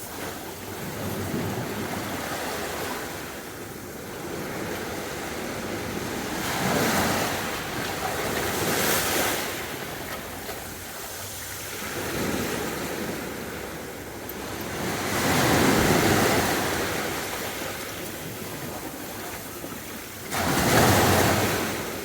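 Sea waves breaking and washing on a beach. Each surge swells and ebbs every few seconds, and the loudest comes in sharply near the end.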